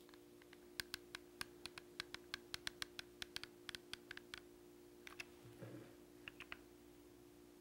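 Hot glue gun and braid being handled: light, irregular clicks, about four a second for a few seconds, then a few more further on, over a faint steady hum.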